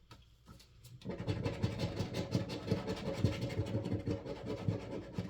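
A coin scraping rapidly back and forth across a scratch-off lottery ticket, rubbing off the latex coating. It starts about a second in and goes on in quick, dense strokes.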